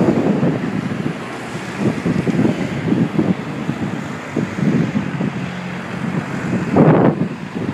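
Wind buffeting the microphone, an irregular gusty rumble with a strong gust near the end.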